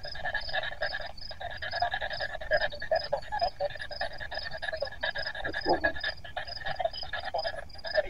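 Handheld spirit box sweeping through radio stations: a choppy run of static and clipped radio fragments about three or four a second, with a brief falling voice-like snatch near the end. The investigators take fragments of it for spirit replies, "yes" and the Mohawk "tahnon she:kon" ("and hello").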